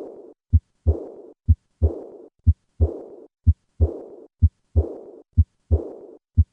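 Heartbeat at about one beat a second, each beat a short first and second heart sound. Straight after the second sound comes a high-pitched, blowing diastolic murmur that fades away before the next beat: the decrescendo early diastolic murmur typical of aortic regurgitation.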